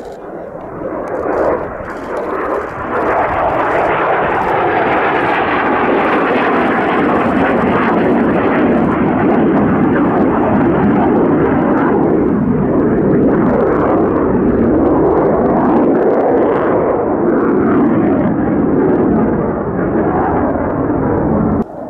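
Mitsubishi F-2 fighter jet in a display pass, its single turbofan engine loud and steady after building up over the first three seconds. Sweeping, wavering tones run through the noise in the second half, and the sound cuts off suddenly near the end.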